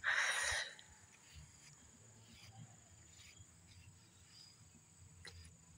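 A brief rustle in the first half-second, then quiet outdoor background with a faint, steady high-pitched trill of crickets.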